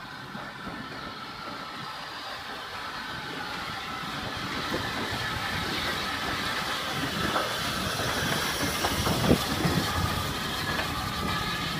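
Saddle-tank steam locomotive and its coaches passing close by, growing louder as it approaches, with steam hissing and the wheels clattering over the rails. A few sharp clanks come in the later part, the loudest about nine seconds in.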